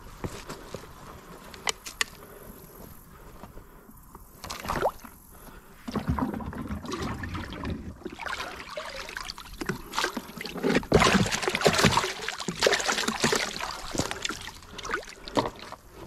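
Water gurgling and sloshing as a plastic bucket is dipped into a creek and filled, starting about six seconds in and loudest a few seconds later.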